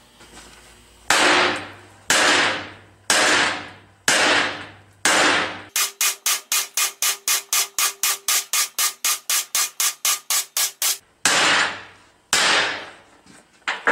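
Short-handled sledgehammer striking the upright steel plate of a MIG-welded T-joint, each blow a ringing metal clang, to break the fillet weld in a hammer test. Single blows come about a second apart, then a fast run of about twenty strikes at roughly four a second, then a few more single blows.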